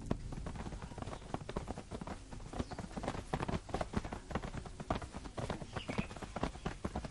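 Horses' hoofbeats, a dense, uneven run of many strikes.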